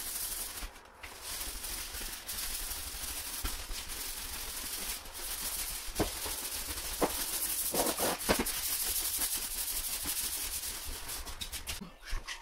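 Broom bristles sweeping across a bare wooden plank floor: a steady scratchy brushing, with a few sharp knocks about halfway through.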